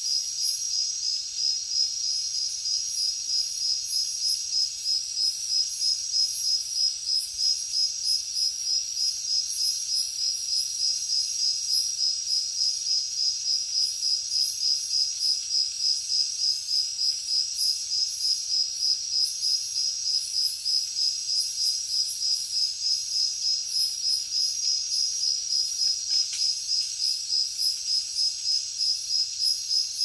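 Crickets chirping in a steady chorus, the loudest a high chirp repeating about three times a second over a fainter continuous trill.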